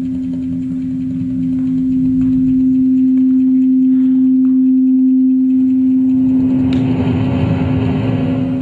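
Contemporary flute-and-electronics music: a single steady low tone is held throughout over a rumbling noise layer. A wider band of noise swells up in the last couple of seconds, with a sharp click near the end.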